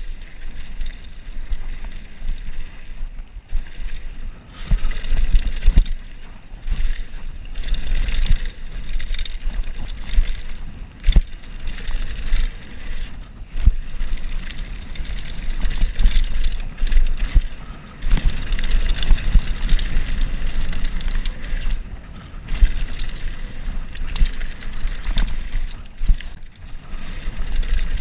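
Mountain bike riding fast down a dirt and gravel trail: tyre rumble and gravel noise with frequent rattles and knocks over bumps, and wind buffeting the microphone, the loudness surging and dropping with the terrain.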